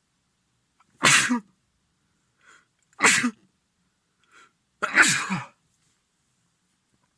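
A man with a head cold sneezing three times in a row, about two seconds apart.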